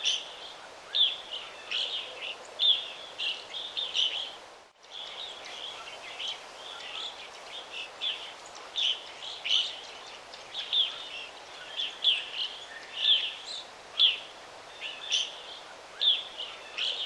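Birds chirping: short, repeated chirps over a steady background hiss, with a brief dropout about five seconds in.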